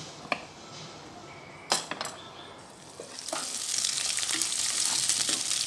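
A few sharp clinks and knocks, then from about three seconds in chopped onions sizzling loudly in hot oil in a frying pan while they are stirred.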